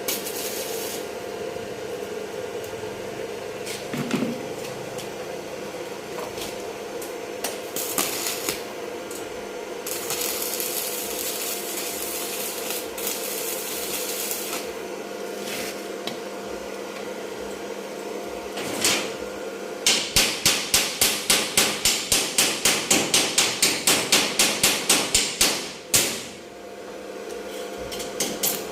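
Rapid hammering, about four to five strikes a second for roughly six seconds in the second half, with a few single knocks earlier, over a steady workshop hum.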